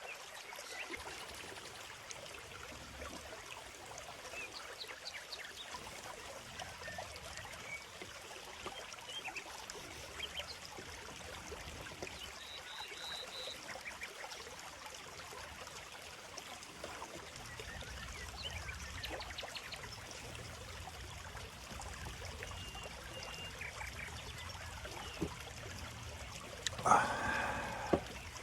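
Small stream babbling steadily, with small birds chirping now and then. About 27 seconds in comes one brief, loud pitched call or cry, the loudest sound.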